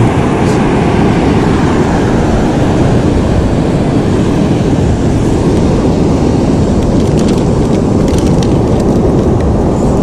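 Heavy ocean surf breaking: a loud, steady roar. A few light clicks come near the end.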